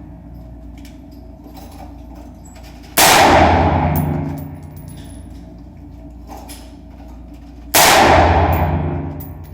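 Two AR-15 rifle shots fired through a fake suppressor, about five seconds apart. Each is a sudden loud report that trails off over about a second and a half.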